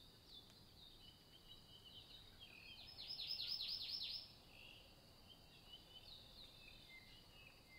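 Faint birdsong: scattered short high chirps, with a louder run of about seven quick down-slurred notes around three to four seconds in.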